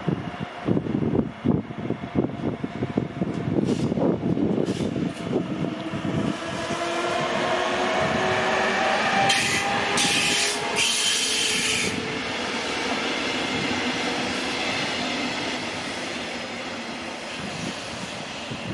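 DB class 146 electric locomotive passing with double-deck coaches: the wheels clatter, and the drive gives a whine that rises slowly in pitch as the train gathers speed. About nine to twelve seconds in, as the locomotive is closest, there is a burst of high hissing and squealing, and then the train noise fades away.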